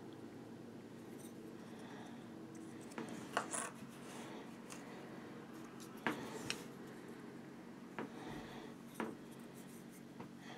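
Small handling noises from painting a plastic miniature by hand: about six short clicks and rubbing scrapes as the figure is turned in the fingers and worked with a fine brush, over a steady low hum.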